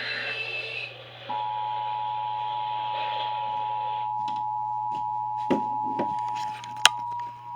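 Emergency Alert System attention signal: two steady tones near 853 and 960 Hz sounding together, starting about a second in, over radio hiss and a low hum. A few sharp clicks break in about five to seven seconds in.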